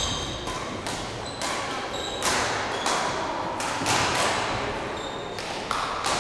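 Badminton rackets hitting a shuttlecock: sharp, irregular hits about two a second, echoing in a large sports hall, with brief squeaks of court shoes on the floor.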